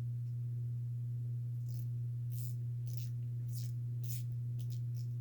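Ratcheting box end of a Pittsburgh Pro 1/2-inch flex-head combination wrench being worked, giving a string of short, irregularly spaced ratchet clicks from about two seconds in. The ratchet is grabbing and not turning consistently, as if something inside is catching. A steady low hum sits underneath.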